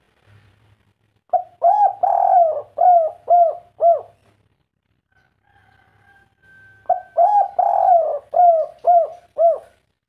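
Spotted dove of the 'kuk 3' song type cooing: two phrases about five and a half seconds apart, each a run of about six arching coos with one longer note near the start and ending in short, evenly spaced notes.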